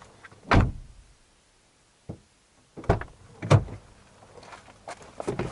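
Knocks and thumps from handling parts inside a car cabin: one heavy thump about half a second in, a short knock about two seconds in, and two more heavy thumps about a second later.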